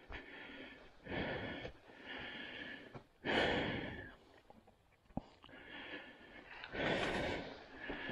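A person breathing hard and close to the microphone, a run of deep in-and-out breaths about one a second.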